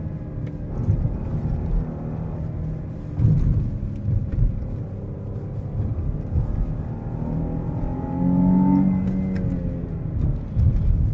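A Chrysler 300's 3.0-litre V6 pulls the car along. Its revs rise from about seven seconds in and fall back about two seconds later. A couple of heavy low thumps come about three and four and a half seconds in.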